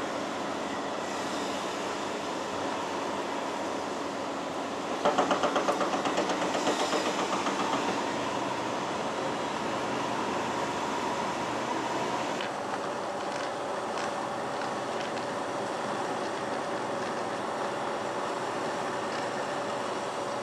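Foundation drilling rig running steadily as it bores inside a steel pile casing, with water and mud churning out around the casing. About five seconds in, a rapid rattling knock of around five strikes a second lasts about three seconds.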